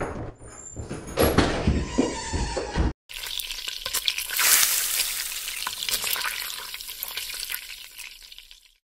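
Footsteps and a few knocks as someone walks off, then a sudden cut to a crackling frying sizzle, like food in hot oil, that fades out near the end.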